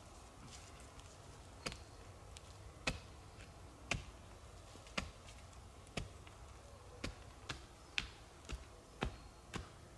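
Sharp wooden knocks of a stake being pounded into forest soil to peg out a canvas tent. They come about once a second at first and quicken to about two a second near the end.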